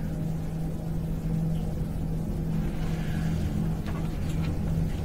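Steady low hum with a rumble beneath it, and a few faint clicks about four seconds in.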